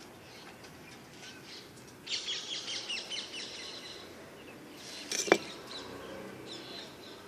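Small birds chirping in quick, high twitters, busiest from about two to three and a half seconds in, with a single sharp knock about five seconds in.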